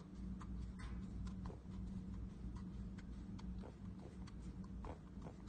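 Kinetic sand being pressed and stamped with a small round plastic tool, giving soft, irregular crunching clicks, a few each second, over a steady low hum.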